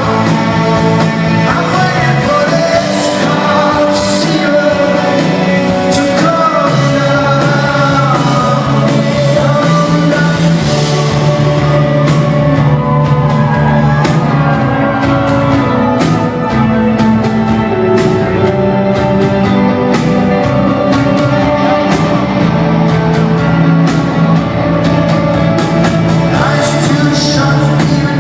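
Live rock band playing with a male lead vocal, recorded loud from the audience in a theatre; about halfway through, regular drum hits come through more strongly.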